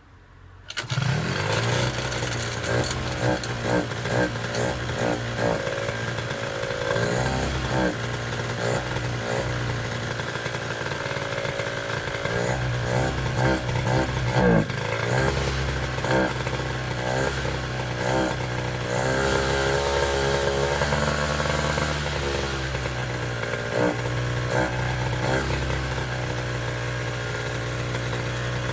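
Piaggio Zip SP scooter's two-stroke 50 cc engine in track-racer build, catching about a second in on its first start after restoration. It then idles and is revved again and again, the pitch rising and falling with each blip of the throttle.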